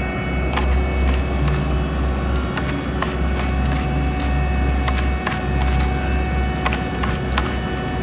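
Heavy diesel paving equipment running with a deep, steady rumble, with scattered sharp clicks and clanks.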